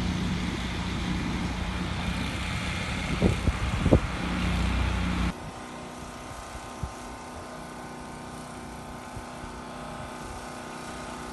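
Heavy construction machinery's diesel engine running steadily, with two brief sharp sounds a little over three and about four seconds in. After an abrupt cut about five seconds in, only a quieter steady machine hum remains.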